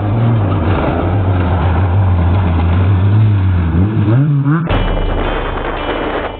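Off-road race car's engine running hard, heard from inside the car, with the revs climbing about four seconds in. Just before five seconds it cuts off abruptly to a different, steadier sound with a low hum.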